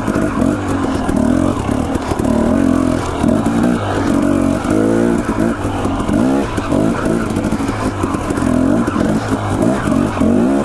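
Husqvarna dirt bike engine, revved up and let fall back over and over as it picks its way along rocky single track.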